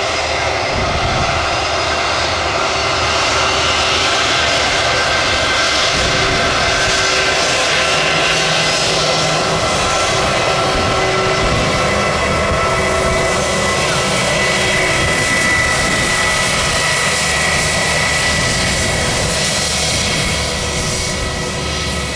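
Twin jet engines of an Airbus A320-family airliner running loud and steady as it takes off, with a high whine standing out of the roar in the second half and the sound easing a little near the end.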